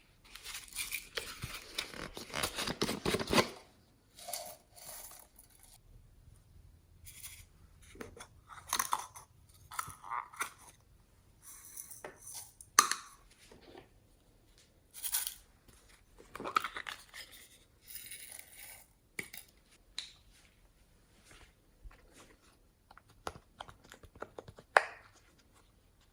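Hands kneading and stretching slime: a dense run of sticky crackling and tearing for the first few seconds, then short separate crackles and pops every second or two.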